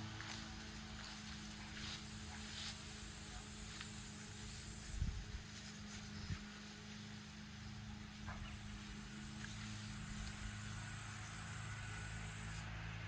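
Footsteps, a few scattered steps and two heavier thuds in the middle, over a steady low hum. Twice a loud high hiss runs for several seconds and cuts off suddenly; it is the loudest sound.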